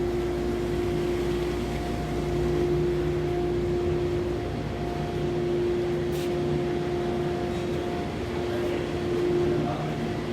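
CNC router running, its spindle giving a steady whine over a constant mechanical noise.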